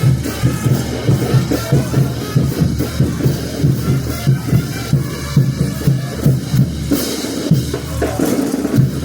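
Festival band music led by a steady beat on bass drum and snare, with the band's other instruments playing underneath.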